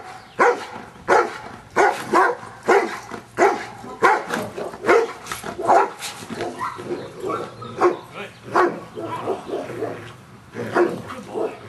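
Giant Schnauzer barking over and over in a steady rhythm, about three barks every two seconds, with a short break near the end before the barking starts again.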